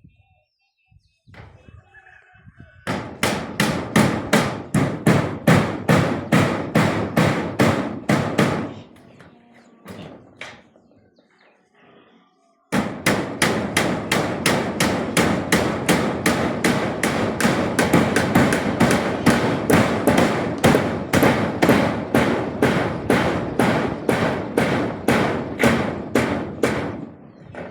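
Rapid, even knocking, about four strikes a second, in two long runs; the second run starts abruptly about thirteen seconds in.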